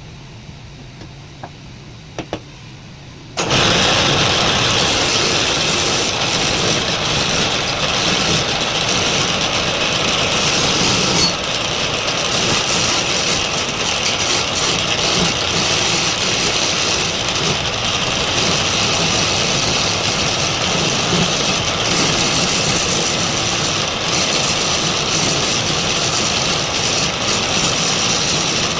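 A wood lathe starting abruptly about three seconds in, after a couple of faint clicks, then running loud and steady.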